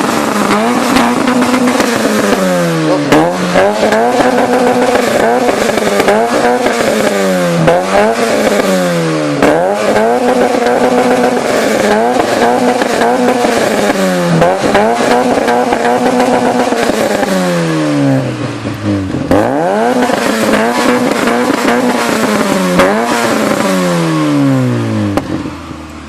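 Opel Vectra A's C20XE 2.0-litre 16-valve four-cylinder, breathing through an exhaust with only a middle silencer and a Bastuck rear silencer, being revved repeatedly while stationary. About ten quick revs climb high, hold briefly and fall back, and it settles to idle near the end.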